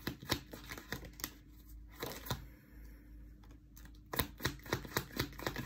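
A deck of cards shuffled by hand: scattered soft card slaps and rustles, then a quick run of card snaps from about four seconds in.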